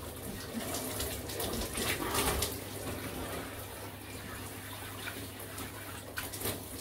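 Shower spray running over a man's back and shoulders and splashing onto the tiled shower floor, a steady hiss with uneven splashes as he moves under the water.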